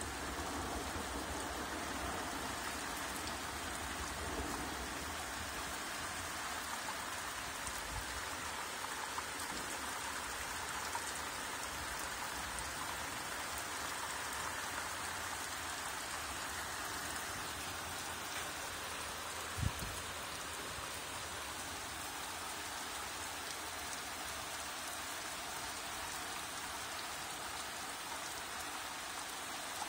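Steady rain falling, an even hiss of drops hitting a surface, with one brief low thump about two-thirds of the way through.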